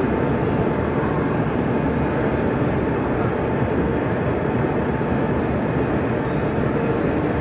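Steady hubbub of an exhibition hall crowd, mixed with the rumble of O gauge model trains running on the layout, with a faint steady tone through it.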